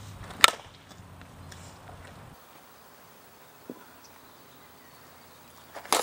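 Softball bat striking a pitched ball twice: a sharp crack with a brief ring about half a second in, and another just before the end.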